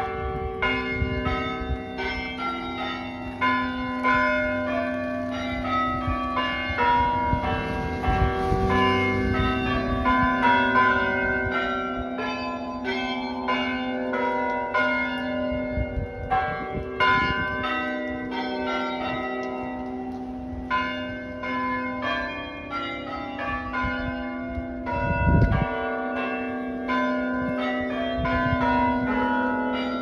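Tower bells of a chime playing a tune: notes at different pitches are struck one after another, two or three a second, and each rings on and overlaps the next. A low rumble comes near the end.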